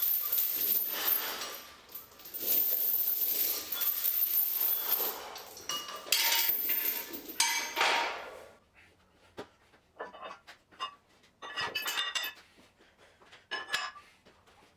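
Metal gym weights clanking and jangling with a ringing tone, dense for about the first eight seconds, then a few scattered clinks.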